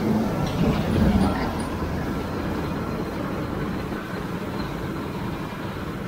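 Combine harvester running steadily while cutting, heard from inside its cab as a dense, even drone, a little louder in the first second or so.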